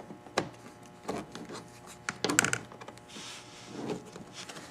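New plastic windshield cowl panel knocking and rubbing against the car as it is set down and shifted to line its fasteners up with the grommets: a few light taps, with a sharper cluster of knocks a little past the middle.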